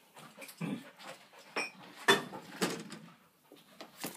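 Knocks and clanks from a stiff old lawnmower being handled and shifted. There are several sharp knocks, the loudest about two seconds in, with a brief ring.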